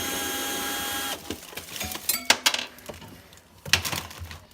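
Milwaukee 12-volt cordless drill spinning a nut driver for about a second, a steady whine that cuts off as the last screw backs out of the refrigerator's plastic liner. Then a few sharp clicks and knocks from the tool and the loose screw.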